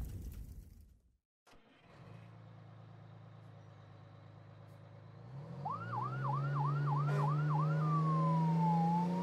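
Dubbed-in emergency-vehicle siren: six quick rising whoops, then a long wail that falls and rises again. Under it a vehicle engine hums and rises about five seconds in, after a noisy sound fades out in the first second.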